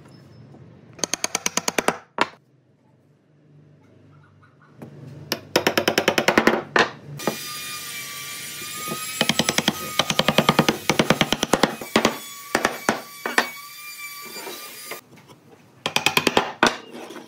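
Wooden mallet knocking pine frame joints together, in several quick runs of sharp taps about ten a second. In the middle stretch a steady whining hiss runs under them for several seconds.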